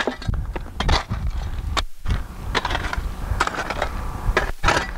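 A steel shovel scraping and raking through crushed quartz rock and fines, several gritty strokes with small stones clattering.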